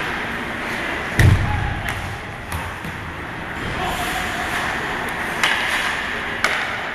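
Ice hockey play in an indoor rink: a heavy thud about a second in, then several sharp clacks of sticks striking the puck, over a steady rink din of skates on ice and crowd murmur.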